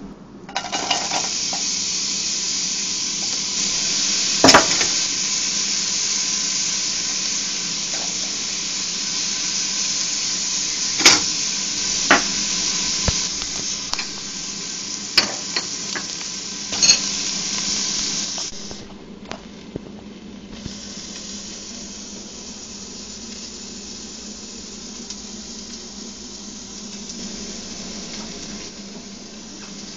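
Diced onion and ginger frying in hot oil in a stainless steel pot: a steady sizzle that starts suddenly, with a utensil knocking against the pot a handful of times as it is stirred. About two-thirds of the way through the sizzle drops to a quieter hiss.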